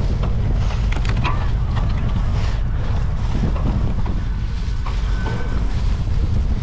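Wind buffeting a handlebar-mounted GoPro on a cyclo-cross bike being raced, a loud steady rumble, with scattered knocks and rattles from the bike.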